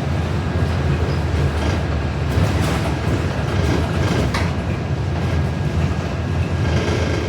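Interior of a New Flyer XD40 diesel city bus running: a steady low rumble of engine and road noise, with a few brief clacks and rattles.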